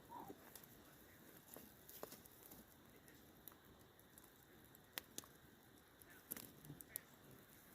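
Near silence, broken by scattered faint clicks and light rustling, the sharpest about five seconds in.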